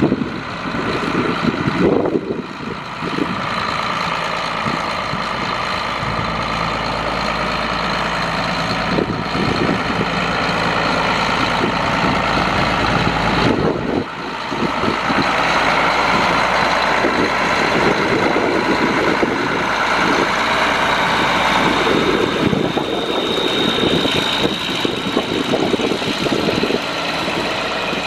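John Deere 9200 tractor's 10.5-litre six-cylinder turbo diesel engine running steadily. About halfway through the sound dips briefly and then goes on with a brighter, busier tone.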